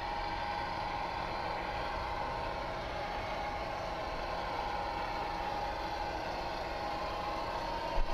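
Long train of large-scale model freight cars rolling along track on an elevated metal frame, a steady rolling noise of many wheels on rail. There is a brief knock about eight seconds in.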